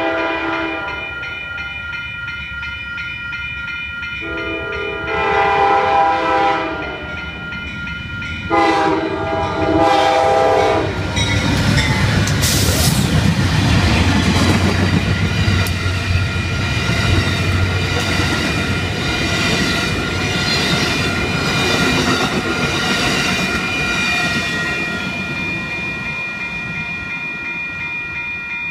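An Amtrak GE P42DC diesel locomotive sounds three long blasts on its horn while approaching a grade crossing. It then passes close by at speed, the engine's heavy rumble giving way to the rattle and wheel clatter of Superliner passenger cars, which fade away near the end. Grade-crossing warning bells ring steadily throughout.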